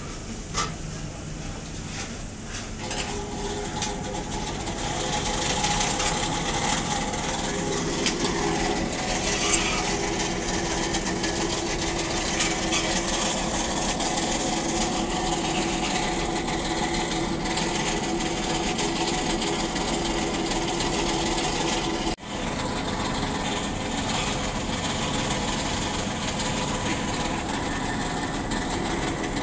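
Metal skewers clicking against the steel edge of a charcoal grill in the first few seconds as they are laid in place, then a steady machine hum that runs on evenly.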